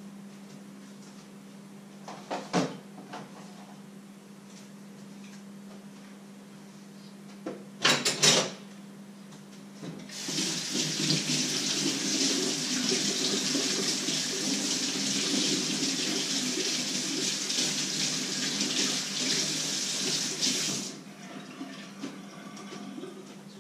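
Kitchen tap turned on and running into a sink for about ten seconds, cutting off sharply. Before it, two short clatters of dishes or pots, and a steady low hum runs underneath throughout.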